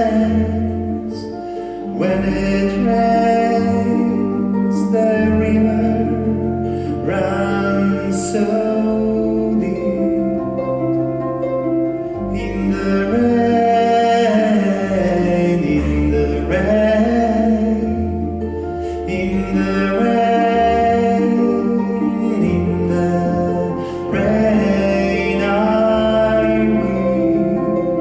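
Male voice singing a slow song, accompanied by a plucked harp and a double bass holding low notes beneath. The voice comes in phrases of a few seconds separated by short instrumental gaps.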